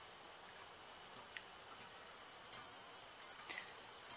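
Brushless motor's ESC sounding its startup beeps through the motor windings. One long high beep comes about two and a half seconds in, then a few short beeps, then a quick run of beeps at changing pitches near the end. These are the ESC's arming tones, confirming it has received the neutral pulse.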